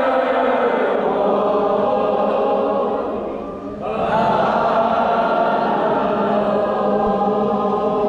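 A large group of voices singing together in unison in long held notes, with a short break about three and a half seconds in before the singing resumes.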